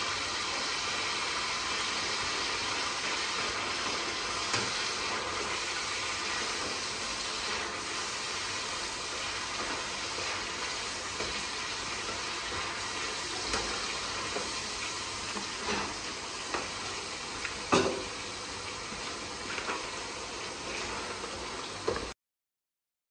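Mutton, tomatoes and green chillies sizzling and bubbling in a karahi over high heat, a steady hiss, with a few sharp clinks of the cook's spoon against the pan, the loudest a little before the end. The sound cuts off abruptly just before the end.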